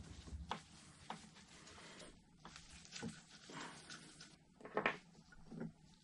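Faint scattered clicks and small metal taps of a screwdriver backing screws out of a motor's bearing retainer ring and the loose screws being set down.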